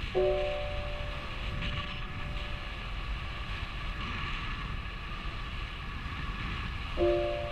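Airflow rushing over the microphone of a camera carried in paraglider flight. Just after the start, and again near the end, an electronic tone of several steady pitches sounds loudly for about half a second, and its upper pitches fade out slowly.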